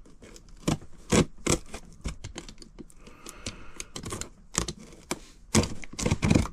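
Cardboard box being cut and prised open with a blunt knife blade: irregular sharp clicks and knocks, with scraping and rustling of cardboard and packing in between.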